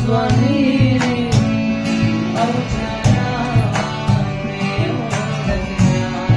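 A voice singing an acoustic cover song over strummed acoustic guitar, the strums falling at regular intervals.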